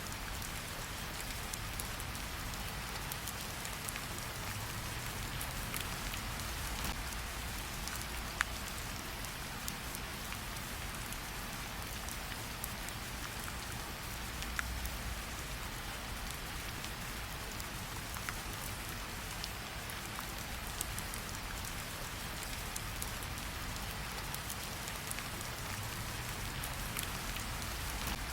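Steady rain falling, an even hiss throughout, with a few sharp pops from a crackling campfire mixed in, the loudest about 8 and 15 seconds in.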